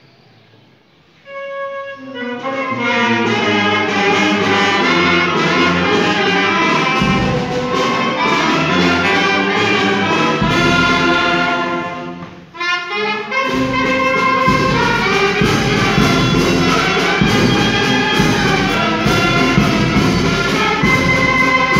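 Village brass band of trumpets, saxophones, sousaphones and bass drum playing the dance tune. It comes in about a second in with a single held note and builds to the full band. Around two-thirds of the way through it breaks off briefly, then resumes with the drum beating hard under the horns.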